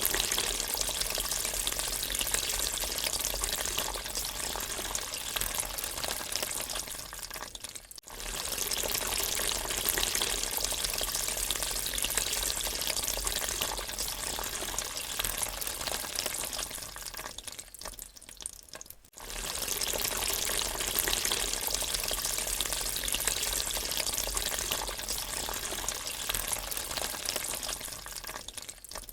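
Water draining: a steady rush of running water that fades down and breaks off about eight seconds in, starts again, fades and breaks off about eleven seconds later, then starts once more and fades near the end.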